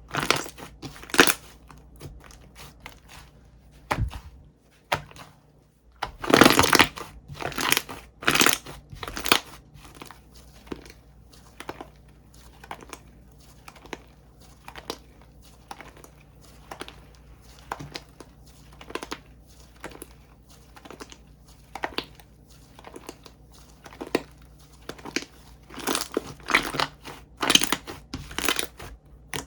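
Bubbly cream slime being squished and pressed by hand, giving irregular crackly pops and squishes in clusters, with a short lull about five seconds in.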